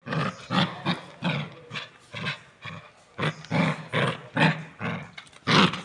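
Puppy growling angrily in short, rapid bursts, about two or three a second.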